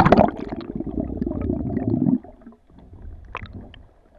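Camera plunging into the water: a splash, then muffled underwater gurgling and bubbling for about two seconds. It then falls to a faint underwater wash with a few scattered clicks.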